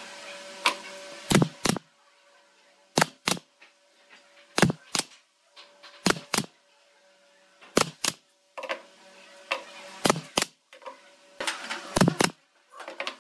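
Pneumatic brad nailer firing brads through thin wooden slats into a crosspiece: sharp shots in quick pairs, about a third of a second apart, with a pair every second and a half or so.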